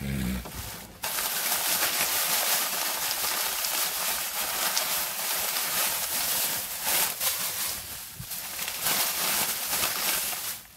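Plastic bag rustling and crinkling close to the microphone as it is handled, starting suddenly about a second in.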